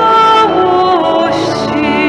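A woman singing a hymn with church organ accompaniment: long held notes that step down in pitch, with a wavering vibrato near the end.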